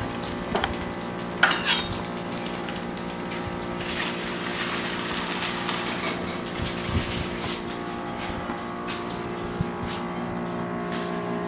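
Clinks, scrapes and rustles of a metal roasting pan, aluminium foil and a spatula as a baked stuffed spaghetti squash half is lifted out of the pan, with a few sharp knocks over a steady hum.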